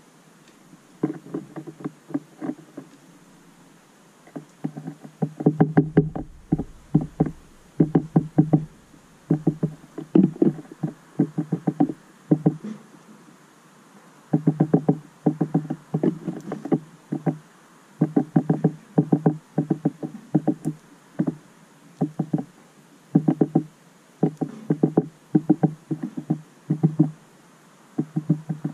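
Small finches pecking seed at the ports of a plastic tube feeder, their beaks knocking on the feeder in rapid runs of taps about a second long. The runs come again and again with short pauses between them.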